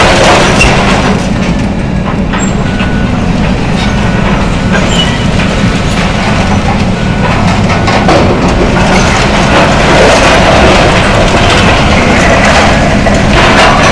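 John Deere excavator running steadily while tearing down a building, with scattered clanks and crunches of breaking debris, loudest near the start and again near the end.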